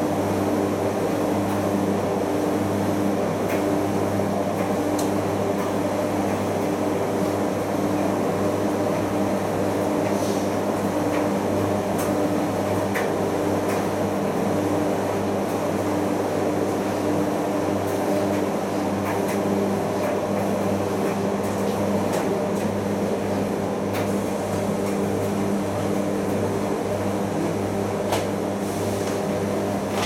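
Primus FX105 commercial washing machine running its final rinse, its drum tumbling a wet duvet over a steady motor hum.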